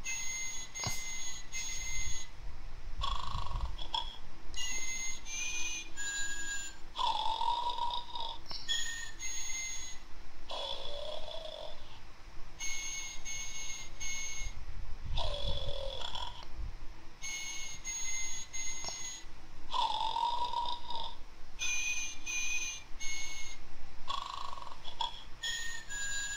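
Snoring Totoro toy playing its snoring sound: drawn-out snore breaths with high whistling tones, repeating in a cycle every few seconds.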